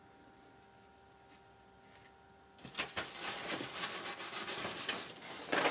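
Tissue paper packing rustling and crinkling as it is handled, starting about halfway in after a quiet moment and loudest near the end.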